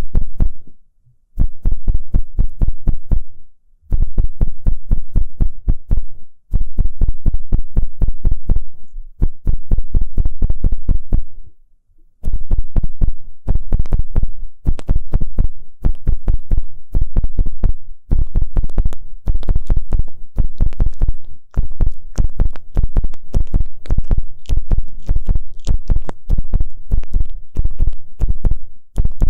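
Ear pick scraping and rubbing inside a microphone ear: rapid, loud scratching strokes with a heavy low thud, in runs of a few seconds split by brief pauses.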